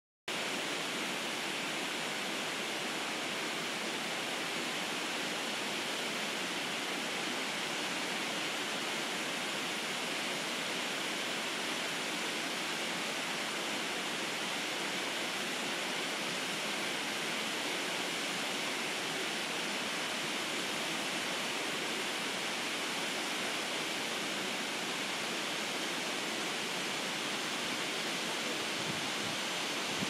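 Shirahige Falls: many thin streams of water falling down a cliff face into a river, a steady, even rush with little low rumble.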